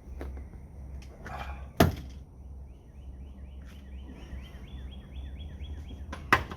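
Two sharp knocks, one about two seconds in and another near the end, over a steady low hum. In between, a bird gives a run of short falling chirps, about four a second.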